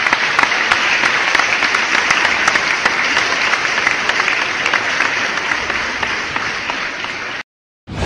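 Crowd applause: many hands clapping together, easing a little before stopping abruptly about seven seconds in.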